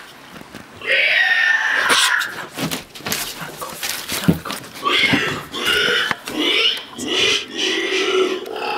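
Loud, animal-like guttural grunting and squealing calls from an unseen creature. One burst comes about a second in, and a run of repeated calls follows over the second half, with a few knocks in between.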